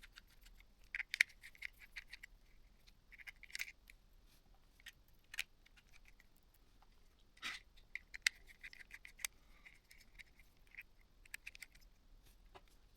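Faint light clicks and short squeaky scraping of a small Torx screwdriver working tiny screws out of a mobile phone's plastic frame, with small screws and parts set down on a hard surface now and then.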